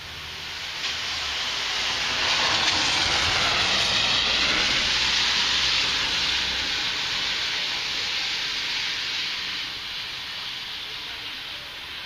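Heavy rain hissing steadily, with a long rushing swell on top that builds over the first few seconds, is loudest from about three to six seconds in, and slowly fades.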